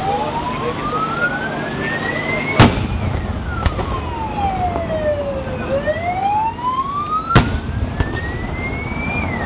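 A siren wailing, its pitch rising slowly for a few seconds, then falling and rising again. Two sharp firework bangs cut through it, about two and a half seconds in and again near seven seconds.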